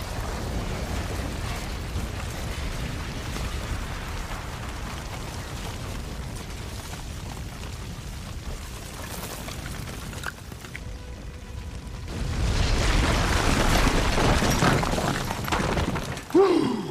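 Film explosion sound effects: a long, deep rumbling blast with flying debris under a music score. About twelve seconds in, a second, louder rush of blast noise follows, and near the end there is a sudden loud sound with a sliding pitch.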